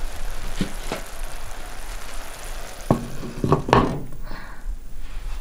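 Oil and water boiling in a new stone pot on a stove, a steady sizzling hiss: the pot is being cured so that it will not crack in cooking. About three seconds in, a few sharp knocks of stone on stone as its heavy carved stone lid is set on.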